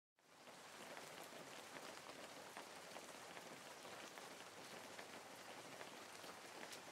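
Faint sizzling with scattered small crackles from pui shak stems, potatoes and dried fish frying in a pot.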